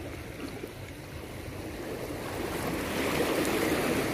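Small waves washing in at the water's edge of a shallow beach, the wash swelling louder over the last two seconds.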